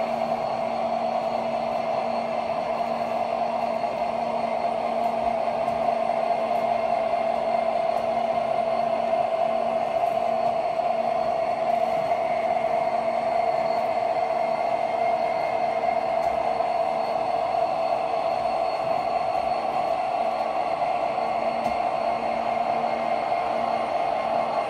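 O gauge model coal hopper cars rolling steadily on the layout's track, a continuous even rolling noise with a faint steady hum under it.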